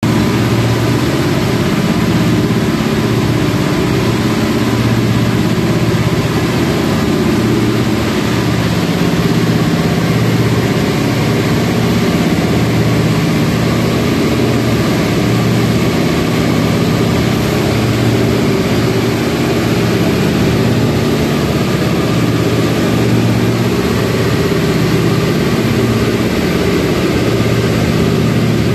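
Indian Railways WAG-7 electric locomotive running with a steady low machine hum.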